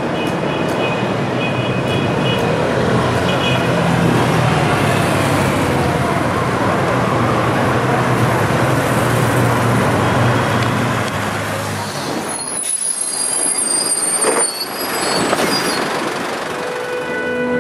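Busy city street traffic noise with a heavy vehicle's engine humming steadily, which breaks off suddenly about twelve seconds in and gives way to thinner street noise with a few high squeaks. Near the end a violin starts playing.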